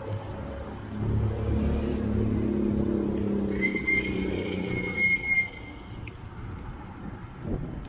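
A motor vehicle's engine runs close by for about four seconds. Midway a steady high-pitched squeal joins it for about two seconds.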